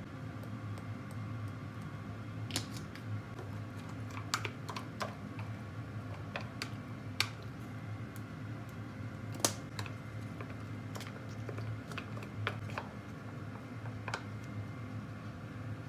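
Metal spoon and wooden chopsticks clicking and tapping against a plastic container as bean sprouts are seasoned and tossed: irregular light clicks over a steady low hum.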